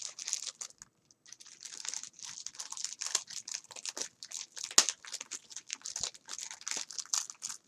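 Wrapping being handled, crinkling in a dense run of short crackles, with a brief pause about a second in and one sharper crackle near the five-second mark.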